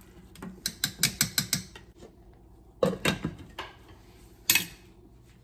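A quick run of sharp mechanical clicks, about eight in just over a second, then a short clatter and a single loud click near the end.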